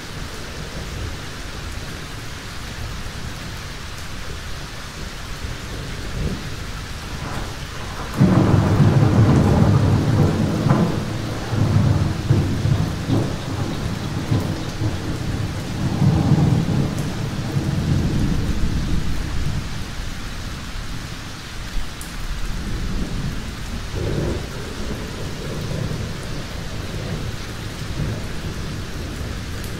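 Thunderstorm: rain falls steadily throughout. A sudden loud thunderclap comes about eight seconds in and rolls on as rumbling thunder for about ten seconds, and a smaller roll of thunder follows near the end.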